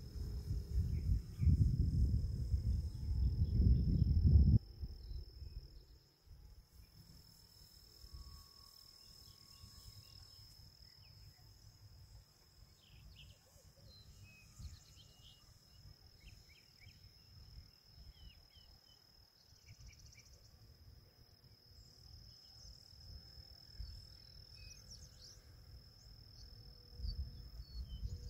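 A steady high insect trill over an open field, with loud wind buffeting the microphone for the first four or five seconds. After that, scattered faint chirps and the faint, distant drone of a radio-control aerobatic airplane's motor, rising and falling in pitch.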